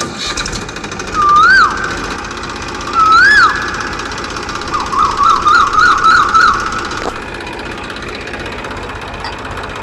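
Siren-like electronic whoops: two rising-and-falling whoops, then a rapid warbling run, over a steady mechanical running noise.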